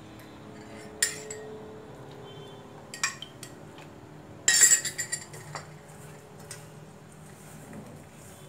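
A metal spoon clinking against a stainless steel mixing bowl: a sharp clink about a second in, another about three seconds in, then a louder cluster of clinks and scrapes around four and a half to five seconds in.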